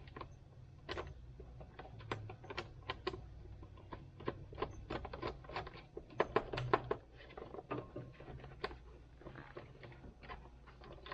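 Plastic steering column trim cover on a 2006 Jeep Wrangler being worked loose by hand: irregular clicks, taps and rattles of plastic, busiest about six to seven seconds in.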